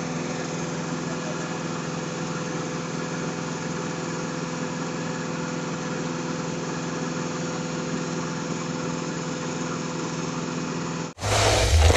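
Concrete mixer truck's diesel engine running steadily, with the drum turning as it discharges concrete: an even hum holding a few constant tones. It cuts off suddenly near the end, replaced by louder handling noise.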